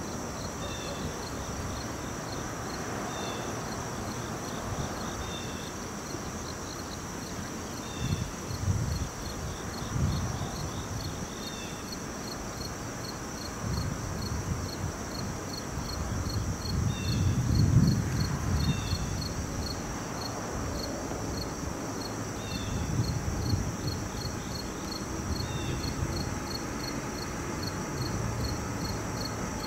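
Crickets and other insects trilling steadily in a high, pulsing chirr, with short chirps repeating every few seconds. Underneath, a low rumble comes and goes, swelling most a little past halfway.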